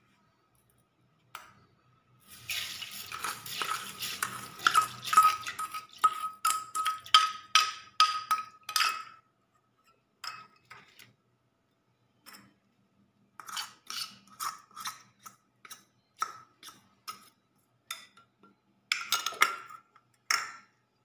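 A steel spoon scraping and tapping against a small steel bowl and a stainless steel mixer jar while sugar and then cocoa powder are spooned in: a quick run of metallic clinks with a ringing note, then a handful of separate taps later on.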